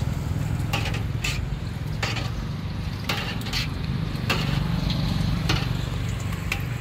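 Oil frying in a wok, with sharp metal clinks of a wire strainer and tongs against the pan scattered through, over a steady low rumble.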